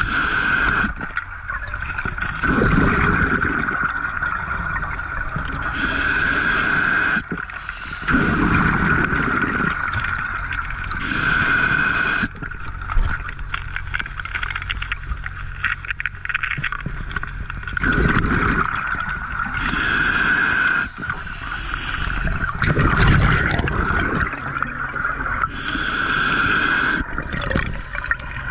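Scuba diver breathing through a regulator underwater: five slow breaths, each a short hissing inhale followed by a longer gurgling rush of exhaled bubbles.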